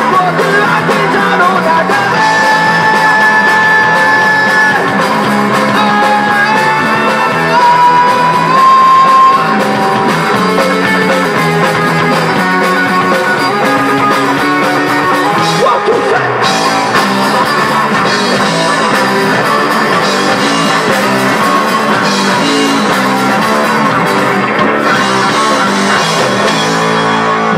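Live rock band playing: electric guitars, bass guitar and a Yamaha drum kit, loud and without a break. A few long held high notes stand out in the first ten seconds or so.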